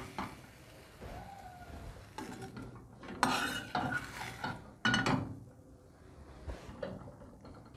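Kitchen utensil clinking and scraping against a frying pan and a ceramic bowl as seared chicken pieces are lifted out of the pan into the bowl. There are a few short clatters, the loudest about three and a half seconds in.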